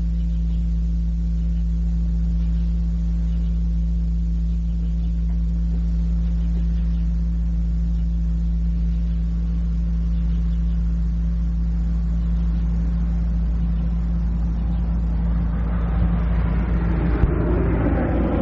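Steady low electrical hum of several tones on a cassette recording. In the last few seconds a motor vehicle's engine noise builds as it approaches, with a single sharp click just before the end.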